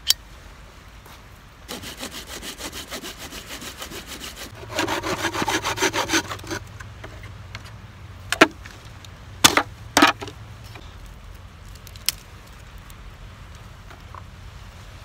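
Hand saw cutting through wood in quick back-and-forth strokes that grow louder partway through, then stop; a few separate sharp cracks follow.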